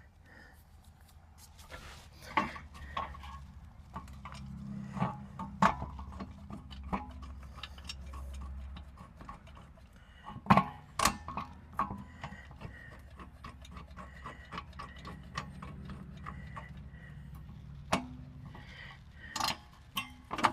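Irregular clicks and knocks of hand tools and parts being handled during rear wheel hub work, with a few sharper knocks standing out, over a steady low hum.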